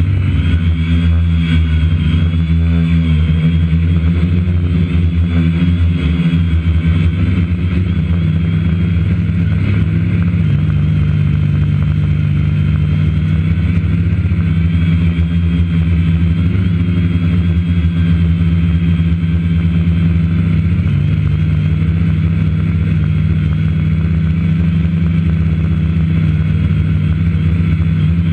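Multirotor drone's electric motors and propellers humming steadily, heard from the drone's own on-board camera, with the pitch wavering a little in the first few seconds as it manoeuvres.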